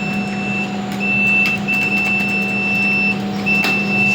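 Lift with a steady electrical hum and a high electronic beep that sounds in on-off stretches of uneven length, some under a second and one about a second and a half long.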